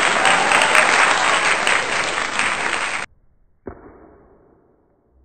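Crowd applause that cuts off abruptly about three seconds in. Shortly after, a single thud with a tail that fades out over about a second.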